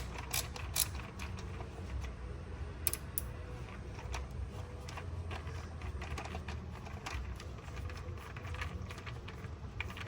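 Irregular clicks and rattles of a hand tool with a T30 Torx bit backing out the screws of the coil cover on an engine, with a low steady rumble underneath.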